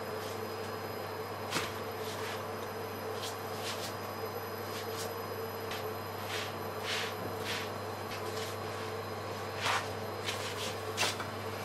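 Wheat tortilla cooking in a dry crêpe pan on an electric hob: a steady electrical hum under scattered light crackles and ticks as the dough cooks and is turned by hand.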